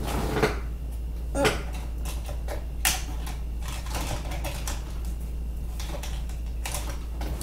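Small plastic bag being handled and worked open: scattered crinkles and light clicks and taps, the sharpest about one and a half and three seconds in, over a steady low hum.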